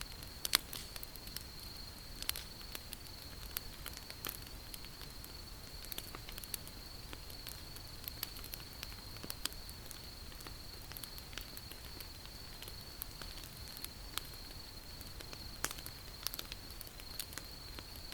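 Wood campfire crackling, with sharp pops and snaps at irregular intervals, the loudest about half a second in. Under it runs a steady high-pitched trill of crickets.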